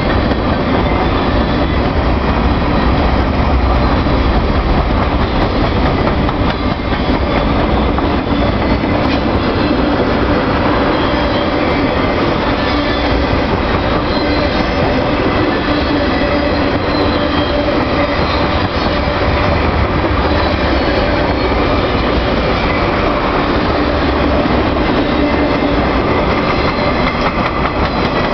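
Freight train cars rolling past close by: a continuous loud rumble and clatter of steel wheels on the rails, with thin high-pitched wheel squeal running through it.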